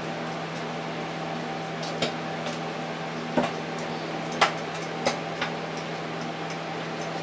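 Microwave oven running with a steady hum while bacon cooks inside, with a handful of sharp, irregular clicks and taps over it.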